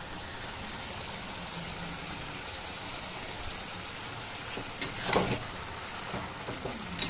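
Bottle gourd curry cooking down in a metal wok with a steady sizzling hiss. About five seconds in, and again near the end, a metal spatula clatters against the wok as hilsa fish heads are added and stirred in.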